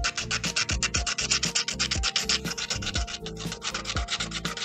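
Emery board sanding the edge of a small puzzle piece cut from paint-swatch card, in rapid short back-and-forth scraping strokes. Background music with a steady beat plays underneath.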